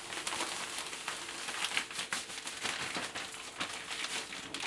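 Plastic bag of dry malt extract crinkling and rustling with many irregular small crackles as the powder is shaken out of it into a pot of hot water.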